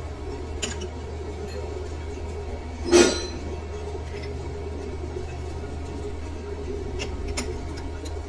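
Metal clinks of a chuck key and tools on a lathe chuck as the chuck is tightened, with one loud ringing clank about three seconds in and a few lighter clicks later, over a steady low hum.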